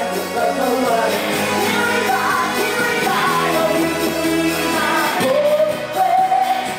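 A woman singing into a microphone, backed by a live band with drums and guitar.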